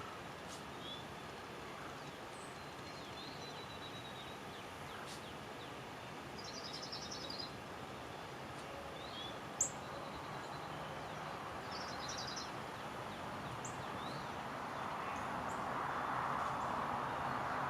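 Outdoor background noise with scattered bird chirps and two short trills. There is a single sharp click about halfway, and a broad rushing sound swells near the end.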